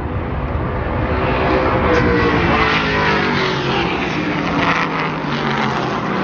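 Eight-cylinder street stock race cars running at speed in a pack and passing, their engines loudest about two seconds in, then falling in pitch as they go by.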